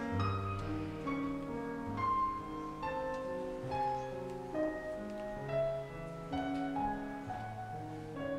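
Slow, soft piano music, a melody of single notes moving over low held notes that change about once a second.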